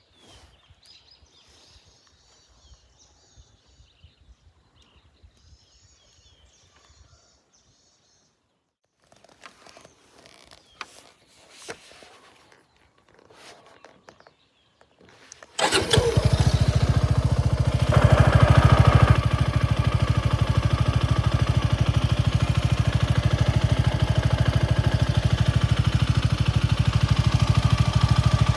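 Faint high chirping and a few clicks, then about fifteen seconds in a Suzuki Gixxer SF250's single-cylinder engine starts through a Yoshimura GP-Magnum 105 Cyclone full exhaust. It revs up briefly a couple of seconds later and settles into a steady idle.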